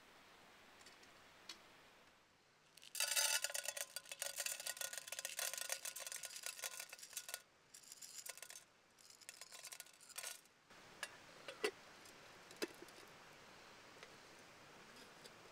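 Dried popcorn kernels poured from a small metal tin into a metal pot, a dense rattle lasting about four seconds, then a few shorter trickles. A few single clicks follow near the end.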